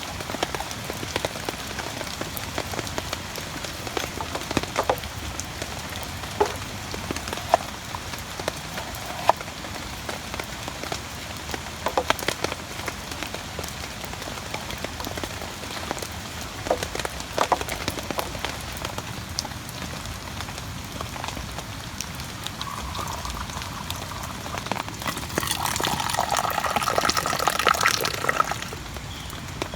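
Steady rain, with frequent sharp taps of drops landing close by. About three-quarters of the way in, a faint steady tone comes in, and then a louder sound with a few steady tones in it that stops shortly before the end.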